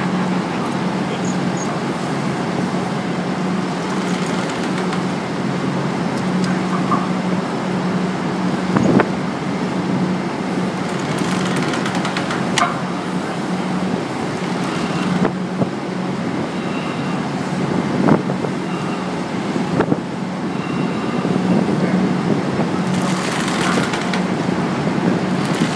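Steady engine drone with a constant low hum, with a few short clicks and knocks scattered through.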